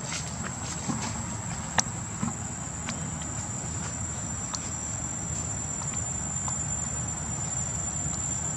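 Insects droning steadily at one high pitch in the forest, over a low rumble, with a few sharp clicks, the strongest a little under two seconds in.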